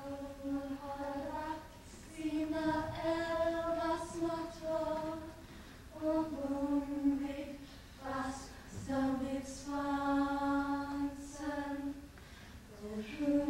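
A cappella female singing: slow phrases of long held notes, each a second or two long, with short breaks between them.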